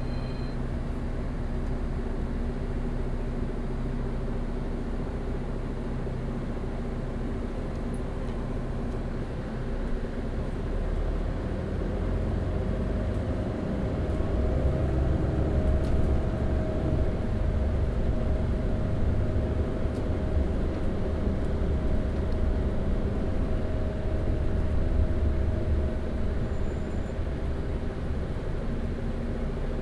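Double-decker bus engine running steadily on the move. About twelve seconds in, the low rumble grows louder and a higher drone joins it, as the engine takes up more load.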